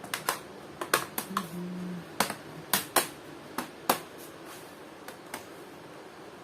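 Keys being pressed on a freshly replaced laptop keyboard: a dozen or so irregular, sharp clicks over about four seconds, then two more a second later.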